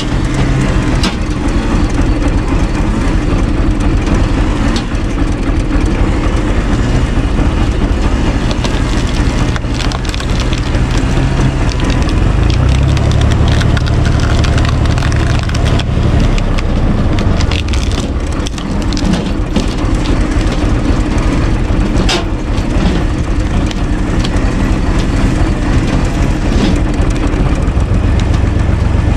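Tractor engine running steadily while a screw cone log splitter bores into a log, the wood cracking and splintering with sharp cracks now and then. The engine's low drone grows heavier for a few seconds around halfway and again near the end, as the cone bites into the log.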